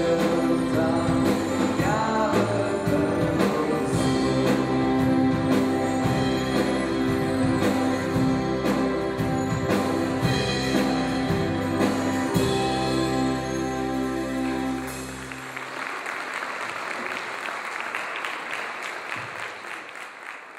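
A young vocal group sings a Polish Christmas carol with instrumental backing and sleigh-bell jingles, ending on a held final chord about fifteen seconds in. Audience applause follows and fades away at the end.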